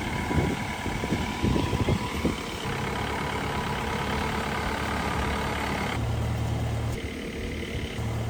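Mahindra jeep's DI turbo diesel engine running, with uneven low thumps for the first couple of seconds and then a steady, even hum.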